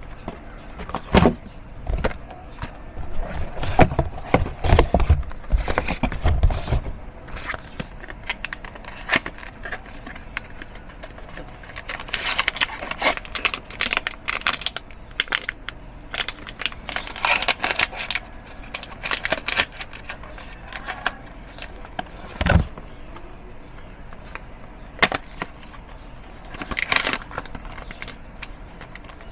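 Cardboard boxes of disposable vapes knocked and set down on a table, with thin plastic wrap crinkling as it is torn and peeled off the devices. There are low thumps in the first few seconds, longer crackling stretches in the middle, and a single knock later on.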